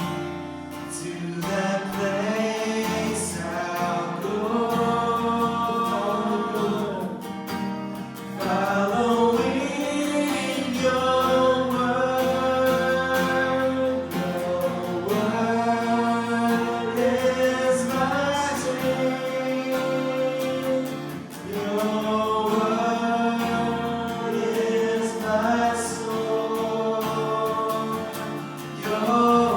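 Congregation singing a slow worship song together, held notes moving phrase by phrase over instrumental accompaniment.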